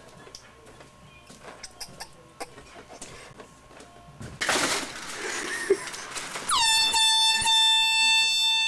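Air horn sounding one long, loud honk that starts about two-thirds of the way in: its pitch drops sharply at the onset, then holds steady. Before it there are only faint clicks and a brief rush of noise.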